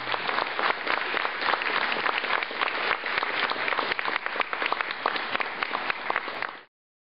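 Small audience applauding, a steady patter of many hand claps that cuts off suddenly near the end.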